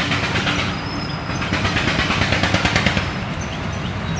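A motor vehicle's engine running steadily, a low rumble, with a rushing hiss that swells between about one and a half and three seconds in.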